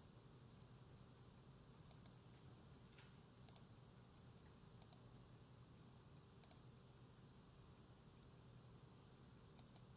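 Faint computer mouse clicks, about five quick pairs a second or two apart, over a low steady hum.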